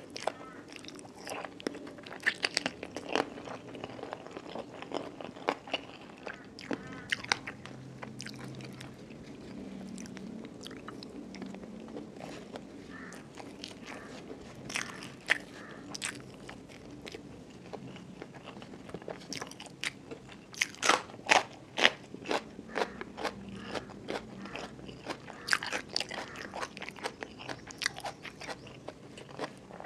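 Close-miked chewing of a mouthful of rice mixed with crispy fluffy fried catfish chili paste, with sharp crisp crunches coming in bursts. The crunches are loudest about two-thirds of the way through.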